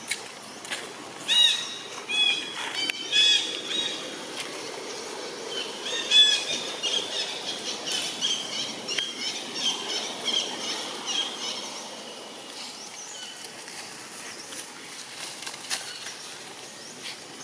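High-pitched animal calls: a few loud arching cries in the first seconds, then a quick run of short repeated chirps that fades away.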